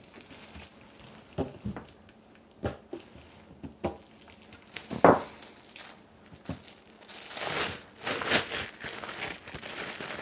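A knife cutting a block of modelling chocolate, with a few light knocks and clicks, the loudest about five seconds in. From about seven seconds in, the plastic wrap around the block crinkles steadily as it is handled.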